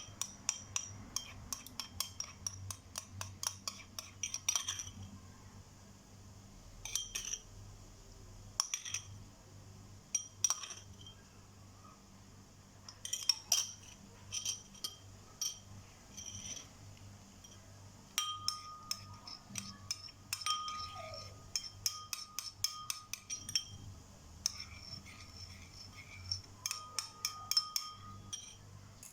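A small spoon clinks against a glass in runs of quick taps, stirring honey into onion juice; the glass rings after each tap. A faint low hum runs underneath.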